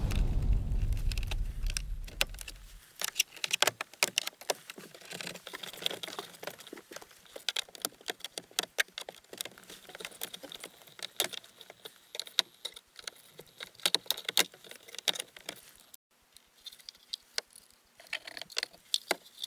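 Irregular light clicks and small rattles of hard plastic parts and small metal pieces being handled, as dashboard and instrument-cluster trim is taken apart. The clicks come quickly and unevenly, with a short pause near the end.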